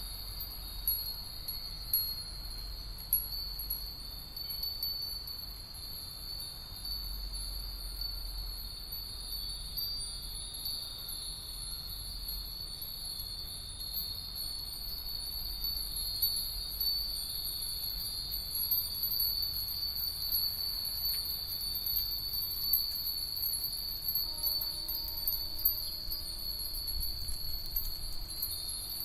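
Hundreds of Japanese wind bells (fūrin) tinkling together, a dense, continuous shimmer of high ringing tones with louder single strikes standing out here and there.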